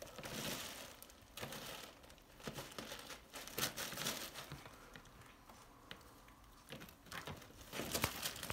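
Thin black plastic bag crinkling and rustling in irregular bursts as a kitten climbs it and claws at it. Sharper crackles come about halfway through and near the end.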